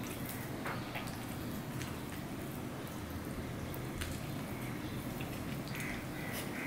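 Fingers mixing boiled rice with fried fish on a steel plate: soft wet squishing with a few light clicks, then a mouthful taken and chewed near the end, over a steady low hum.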